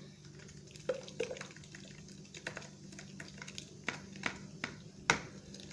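Blended apple and lemon juice dripping and trickling through a sieve, with scattered light clicks and taps.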